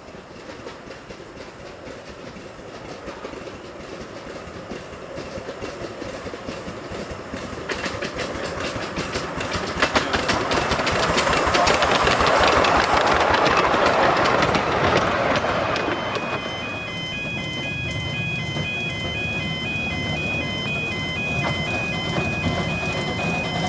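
A miniature 10¼-inch gauge steam locomotive and its carriages approach and pass, growing louder to a peak about halfway through, with much clicking and clatter. About two-thirds of the way in, the sound drops and a level-crossing warning alarm starts, a pulsing electronic tone at several pitches.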